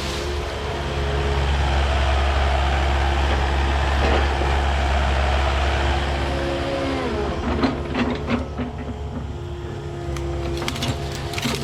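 Excavator's diesel engine running steadily, with a heavy rush of noise for the first six seconds or so as the machine works through brush. In the second half come scattered sharp cracks of brush and branches breaking.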